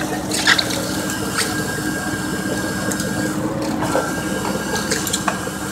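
Purse seiner's engine and deck machinery running steadily, with a few sharp knocks and a thin whine that comes and goes.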